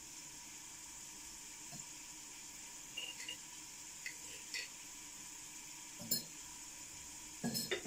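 Quiet room tone with a steady faint hiss, broken by a few light clicks and knocks from off-camera, the loudest about six seconds in and a few more near the end.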